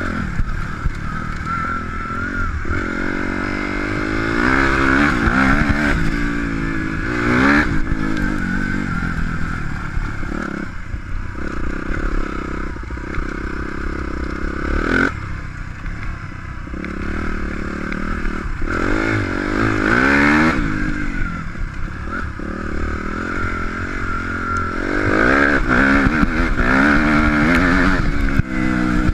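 Suzuki RM-Z250 motocross bike's four-stroke single-cylinder engine heard on board while riding. It revs up and down under hard throttle, its pitch climbing in repeated sweeps and falling away sharply several times as the throttle is shut off.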